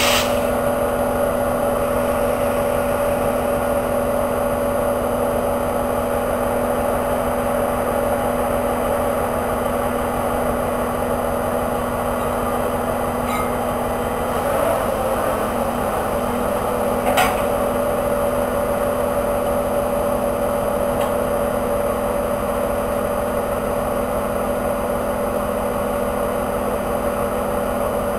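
DB class 294 diesel-hydraulic shunting locomotive idling with a steady hum. A single sharp click comes about 17 seconds in.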